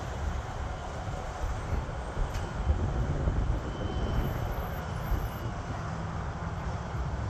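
Twin-engine jet airliner passing overhead at altitude: a steady, distant jet engine rumble.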